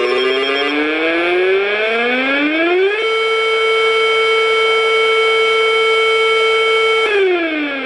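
Civil defense siren winding up in pitch for about three seconds, holding one steady wail for about four seconds, then starting to wind down near the end.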